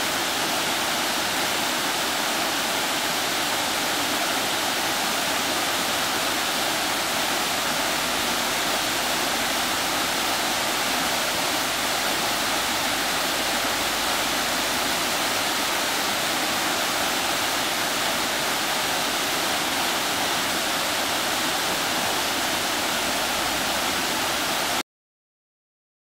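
Small waterfall cascading over rocks: a steady, even rush of falling water that cuts off abruptly near the end.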